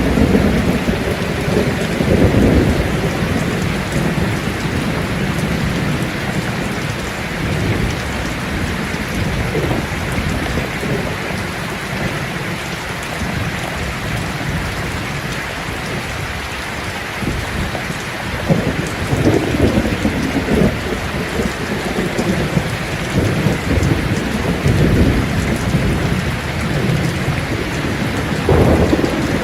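Steady rain falling, with low rumbles of thunder rolling in several times: near the start, about two-thirds of the way through and again near the end.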